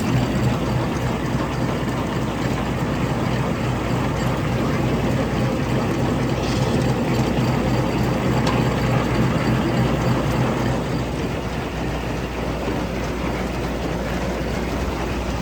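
Tractor engine running steadily while driving a feed grinder-mixer's unloading auger, which is emptying the last of the ground feed out of the nearly empty grinder.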